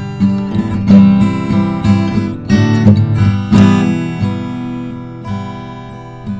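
Background music of strummed acoustic guitar, louder in the first half and fading toward the end.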